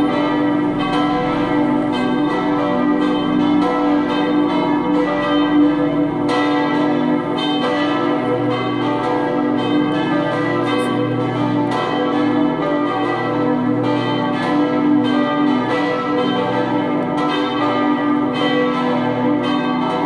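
Four swinging church bells, tuned B2, D3, E3 and G3, ringing together in full peal, their strokes overlapping with no regular beat. The two deep bells sound strongest, and the lowest bell's hum grows louder about eight seconds in.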